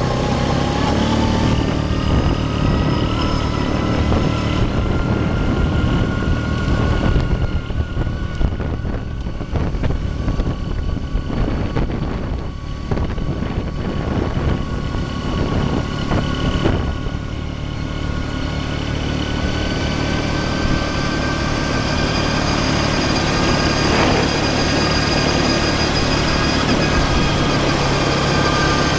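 A small off-road vehicle's engine runs steadily as it drives along a rough dirt track, its pitch drifting slowly up and down. From about seven to seventeen seconds in, a rapid clatter of knocks and rattles comes through as the vehicle jolts over the ground.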